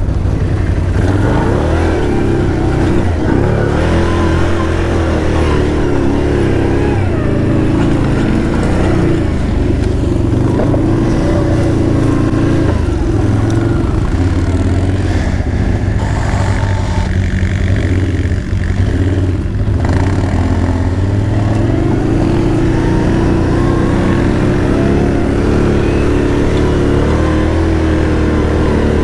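2011 Can-Am Outlander 800R ATV's V-twin engine pulling hard in four-wheel drive while riding. Its pitch rises and falls with the throttle, easing a little around the middle and building again toward the end.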